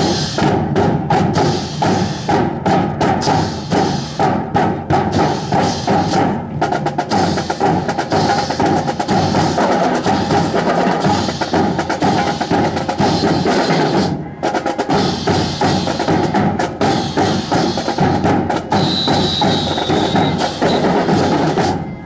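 Band music with drums keeping a steady beat, mixed with sharp wooden clacks of drill rifles being handled. A short, thin high tone sounds near the end.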